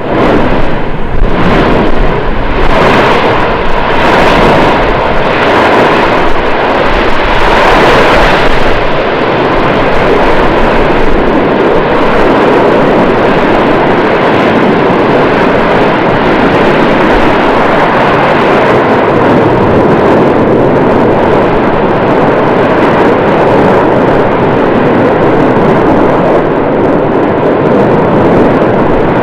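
Volcanic eruption: a quick series of explosive blasts, about three every two seconds, for the first eight or nine seconds, merging into a steady, loud, continuous rumble.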